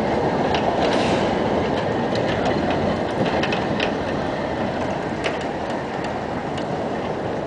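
Vintage tram rolling past on street track: a steady rumble of steel wheels on rail with scattered clacks, slowly fading as it moves away.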